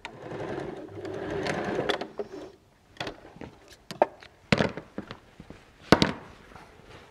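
Janome electric sewing machine stitching for about two and a half seconds, top-stitching a bag lining closed. Then the machine stops, and a few sharp clicks and knocks follow, the loudest near the end, as the fabric is handled.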